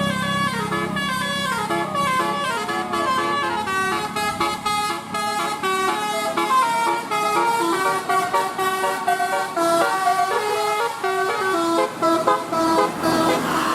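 Basuri 'telolet' musical bus horn playing a fast tune of short notes that step up and down in pitch.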